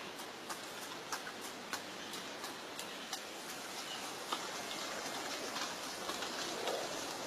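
Outdoor nature ambience: a steady hiss with many sharp ticks scattered irregularly, a few each second, like drips or small clicks.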